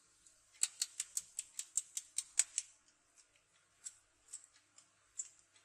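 A quick run of about a dozen light, sharp clicks over two seconds, then three scattered clicks.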